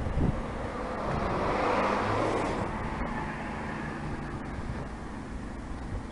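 Outdoor traffic noise: a road vehicle passing, its tyre and engine noise swelling and fading about two seconds in, over a steady low engine hum.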